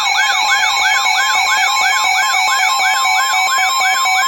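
Weather radio sounding its warning alarm for a severe thunderstorm warning: a rapidly repeating rising-and-falling siren tone, about four sweeps a second, over the steady 1050 Hz NOAA Weather Radio warning tone.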